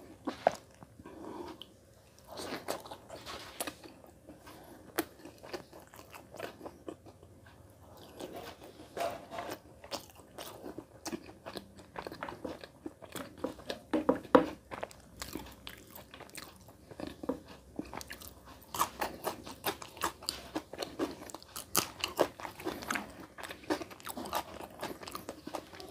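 Close-miked eating: biting and chewing with crisp crunches, clicks and wet mouth sounds, as a man eats rice and curry by hand and crunches raw onion. The crunches and clicks come thicker in the second half.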